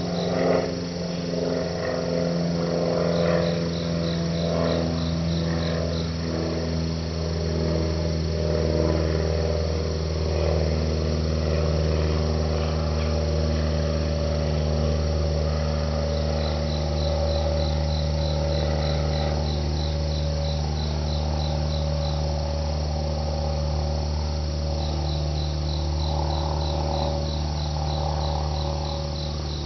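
An insect calling in trains of evenly spaced high chirps, about three or four a second, that come and go every few seconds over a steady low hum. A brief knock sounds about half a second in.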